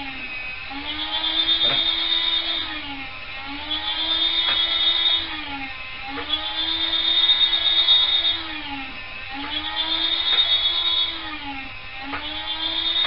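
Electric meat slicer's motor and rotating blade whining as it cuts thin slices of cooked corned beef. The whine dips in pitch about every three seconds, five times, as the blade takes each slice, then recovers, with a few light clicks.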